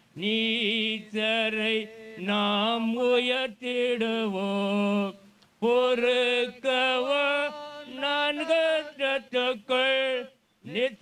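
Voices singing a slow song of long held notes, with short breaks between phrases.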